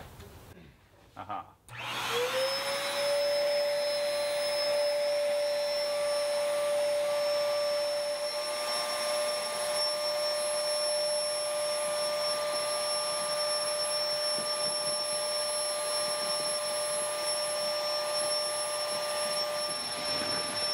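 CarCapsule Showcase air pump switched on with a click: its electric blower motor spins up with a short rising whine, then runs steadily, pushing air through the hose to inflate the car bubble.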